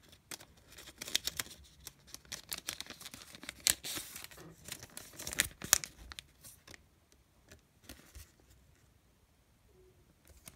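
Pokémon booster pack's foil wrapper crinkled and torn open by hand: a quick run of sharp crackles and rips for about five seconds, then only a few faint rustles.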